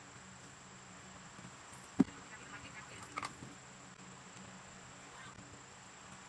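Faint steady background hum, with one sharp tap about two seconds in and a few softer clicks a second later.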